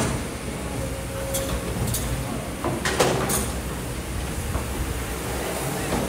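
Kobelco hydraulic excavator running steadily while its arm swings and reaches out, with several sharp clanks and knocks, the loudest about three seconds in.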